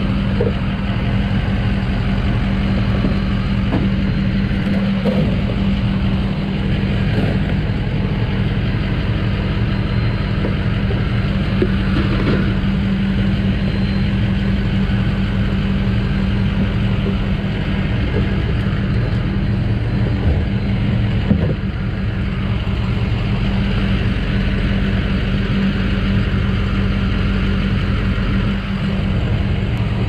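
Steady mechanical hum with a hiss as gasoline is pumped from a filling-station pump into a plastic gas can, dipping briefly near the end.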